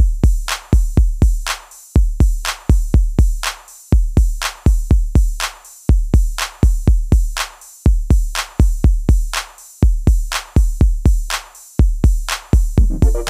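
Background music: a drum-machine beat of deep kick drums and sharp hits repeating steadily, with no melody.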